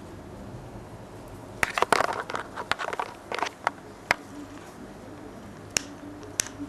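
A Hahn's macaw's beak nibbling and tapping: a quick burst of sharp clicks and crackles starting about one and a half seconds in, then single clicks spaced out, two of them near the end.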